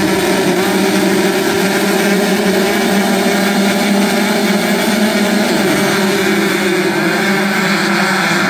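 A full gate of motocross bikes revving hard together at the starting gate, then pulling away as one pack partway through.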